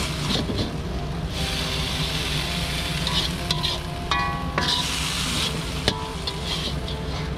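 Metal spatula scraping and stirring the last bits of fried durian flower around a hot wok, with oil sizzling in waves. A sharp knock of the spatula on the wok about six seconds in.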